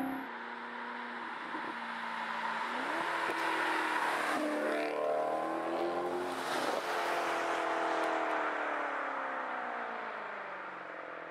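Maserati GranTurismo V8 with an aftermarket MC Sportline exhaust driving past, its engine note climbing about three seconds in as it accelerates, then falling in pitch and fading as it pulls away. A second car's tyres and engine pass by in the middle.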